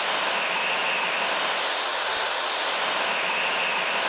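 Small turbojet engine running at a steady speed: an even rushing hiss of airflow with a high whine.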